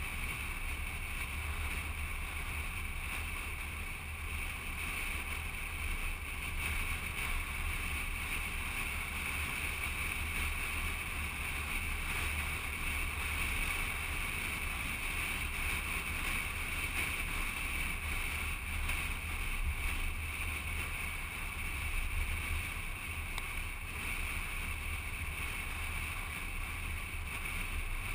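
Steady rush of wind and tyre noise over a low rumble from a car driving along a paved road, picked up by a camera mounted on the outside of the car.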